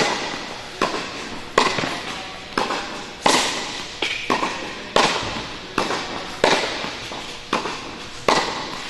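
Tennis balls struck with racquets in a quick practice rally: a sharp pock roughly every three-quarters of a second, about a dozen in all, each one echoing in the indoor court's hall.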